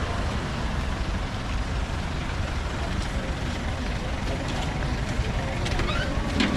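Steady rumble of road traffic, with faint voices and a few short clicks near the end.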